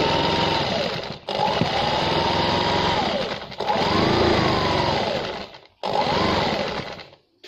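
Single-needle sewing machine stitching fabric in four short runs, each one speeding up and then slowing to a stop, with brief pauses between them.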